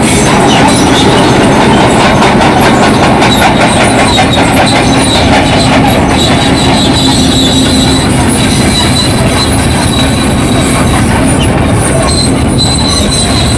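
Crawler bulldozer working, its diesel engine running steadily while the steel tracks clank and squeal continuously.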